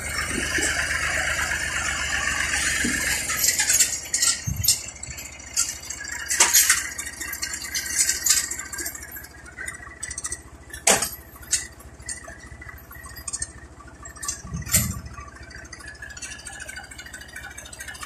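Massey Ferguson 135 tractor engine running steadily for the first few seconds. Then the sound drops to a quieter stretch of scattered light clicks and rattles, with a couple of low thumps.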